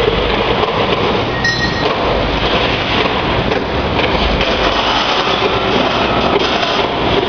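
Peanut roaster machine running: a steady, loud rushing noise, with a brief high tone about a second and a half in.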